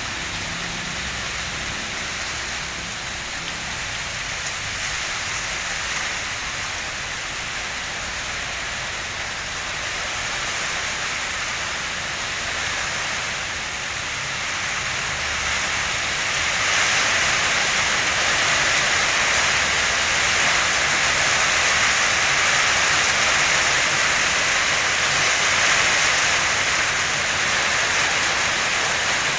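A steady rushing hiss with no distinct strokes or tones, growing louder a little past halfway.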